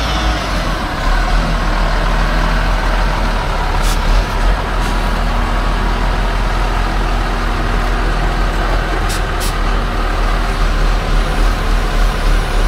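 A heavy vehicle's engine running steadily, with a few faint clicks.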